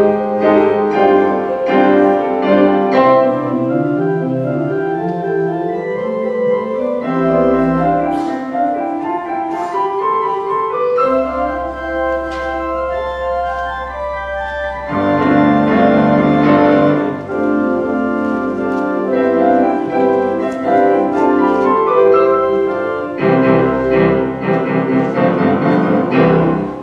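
Piano and pipe organ playing a hymn arrangement together, the organ holding deep pedal notes under the piano's chords and runs. The music swells to fuller chords about fifteen seconds in and again near the end, closing the piece.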